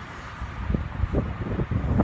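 Wind buffeting the microphone: an uneven, gusty low rumble with irregular soft thumps.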